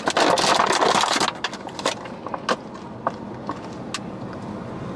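Plastic takeout container being forced open: dense crackling and crinkling of the clear plastic lid for about the first second, then a few separate clicks and snaps as the lid comes free.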